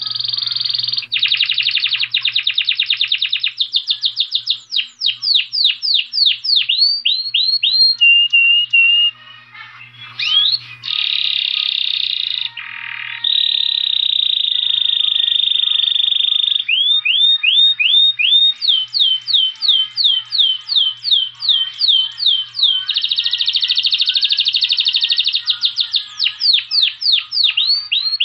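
Saffron finch (canário-da-terra) singing: high-pitched phrases that alternate fast buzzy trills with runs of quick down-slurred notes, with a short break about nine seconds in.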